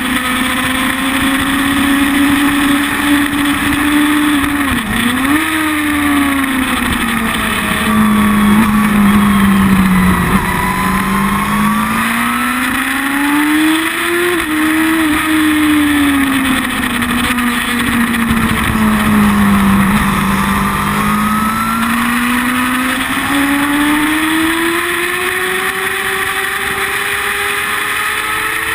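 Sport motorcycle engine heard close to its carbon-fibre slip-on exhaust at track speed, loud and steady. Its pitch sinks and climbs slowly several times as engine speed changes, with a short sharp dip about five seconds in.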